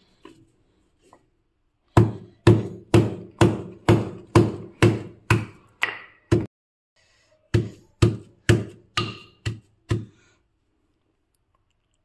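Wooden pestle pounding a whole garlic bulb on a stone board, crushing it into cloves: a run of ten heavy knocks about two a second, a short pause, then six more.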